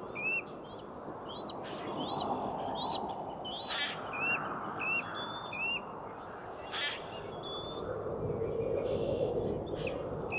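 Bald eagles calling: repeated high, thin chittering notes from more than one bird, over a steady background rustle, with a few sharp rustling impacts.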